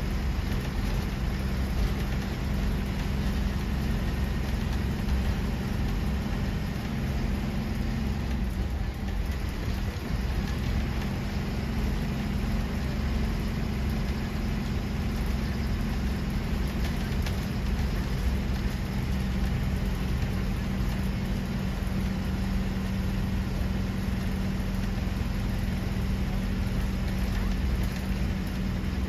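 Bus engine running with a steady low drone and a constant hum, heard from inside the bus.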